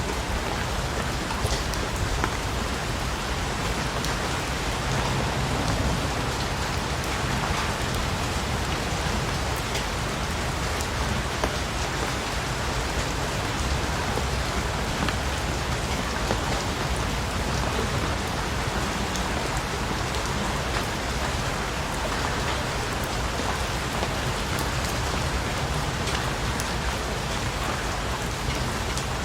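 Steady rain falling, a continuous even hiss with many small drop ticks on a surface.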